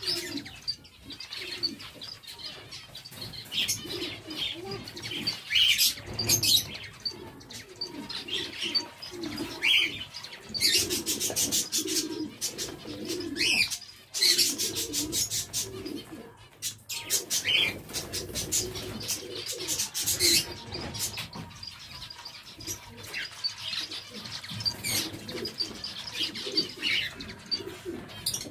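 A flock of zebra finches calling with many short, high chirps, at times in dense clusters, over a lower repeated cooing, with wing flutters as birds fly onto the perches.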